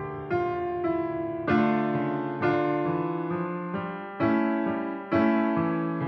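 Background music: a gentle keyboard melody of struck notes that fade away, a new note or chord about once a second.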